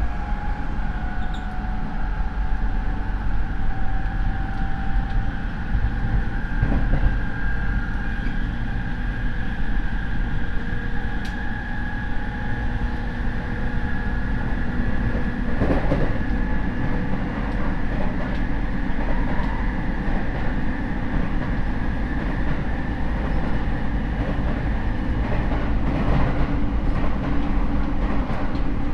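In-car running sound of a Rinkai Line 70-000 series electric train: its MT73 traction motors, fed by a Mitsubishi IGBT inverter, give a loud high whine over the rumble of the wheels on the rails. The whine rises slightly at first, then holds a steady pitch. This car's motor noise is unusually loud for the type.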